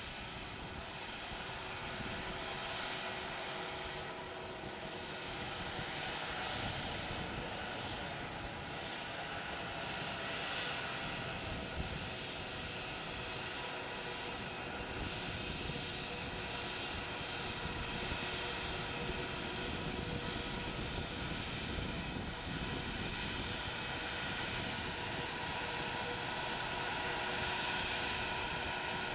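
Airbus A320-family airliner's jet engines running at taxi power as it rolls slowly along the runway: a steady whine with a few held tones, growing a little louder near the end.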